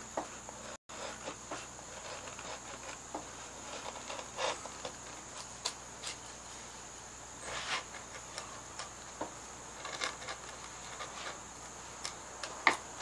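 Hand-pushed carving gouge slicing Alaskan yellow cedar as it hollows a small dish around a raised button: scattered faint scrapes and ticks of the edge cutting the wood, a few a second and irregular.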